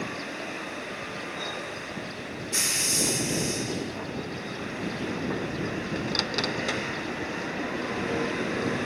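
Ship's deck crane machinery running steadily during cargo unloading. A loud hiss starts suddenly about two and a half seconds in and lasts about a second, and a few sharp metallic clinks follow a few seconds later.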